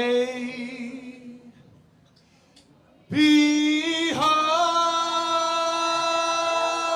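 Male voices singing a cappella in a live performance: a held note fades out, there is a brief near-silent pause, then a long sustained note starts about three seconds in and steps up in pitch about a second later.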